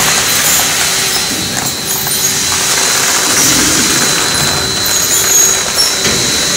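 Popcorn caramel coating and cooling machinery running: the rotating perforated cooling drum and its axial cooling fans make a loud, steady mechanical whir with a thin, high, steady whine.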